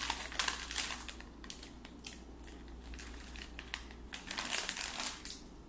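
Plastic snack bag of soft licorice crinkling and rustling as it is handled and pieces are pulled out, in irregular crackles that come thickest at the start and again near the end.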